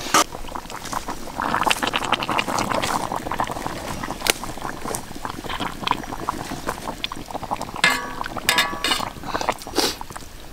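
Whole chicken being turned in simmering broth in a steel wok with metal tongs and a wooden spatula: liquid sloshing and bubbling, with repeated clicks and scrapes of the tongs against the pan. A short pitched squeal sounds near the end.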